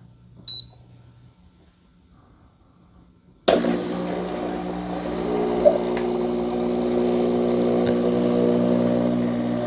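A short beep from the Gourmia espresso machine's touch panel as the clean button is pressed. About three and a half seconds in, the machine's water pump starts suddenly and runs with a steady hum while hot water flows through the milk frother into a jug: the frother clean cycle.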